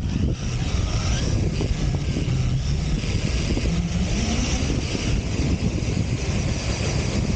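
RC desert buggy driving fast over sand dunes, heard from its own onboard camera: a steady rush of running noise that is heaviest in the low end, with the motor rising briefly in pitch about four seconds in.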